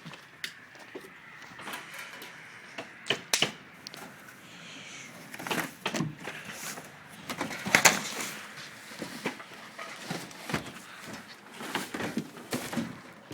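Irregular knocks, clicks and scrapes of window installation work, window units and tools being handled and set against the frame, with the loudest knock about eight seconds in.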